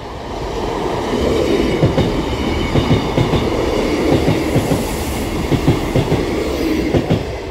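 A diesel multiple unit passing over the level crossing. Its steady running noise builds in the first second and carries a string of sharp knocks from the wheels striking the rail joints. The noise eases a little near the end.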